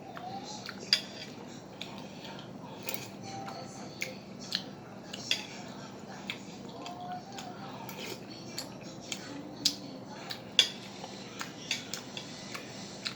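Eating utensils clinking and scraping against a bowl of sujebi soup, in irregular sharp clicks with a few louder knocks.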